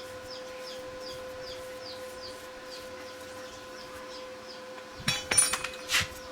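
Metal parts or tools clinking against each other in a quick cluster near the end, the loudest at the very end. Underneath, a steady hum and a faint high chirp repeating about three times a second.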